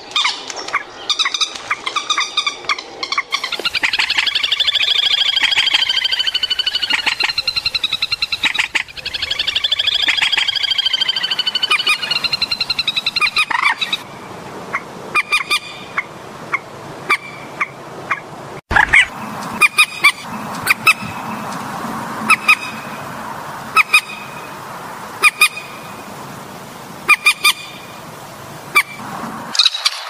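Recorded calls of rails, the swamphen and moorhen kind, played back as a lure for bird trapping. The first half is loud, harsh, honking calls in long series that fall in pitch. Partway through, after an abrupt cut, the calls change to short sharp notes about once a second.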